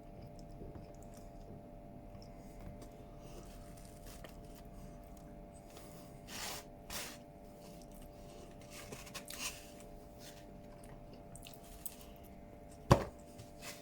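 Quiet eating sounds: a few faint scrapes of cutlery and chewing over a steady electrical hum, with one sharp knock near the end.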